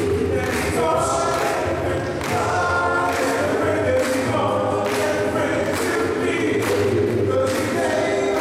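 Male a cappella group singing in close harmony through microphones, sustained chords over a steady low bass part, with regular percussive hits about once a second.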